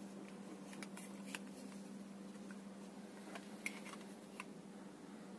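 Faint, irregular clicks and taps of fingers handling a plastic alarm clock case, over a steady low hum.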